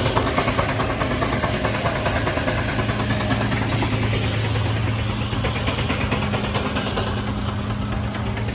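An engine running steadily with a constant low hum and a fast, even beat.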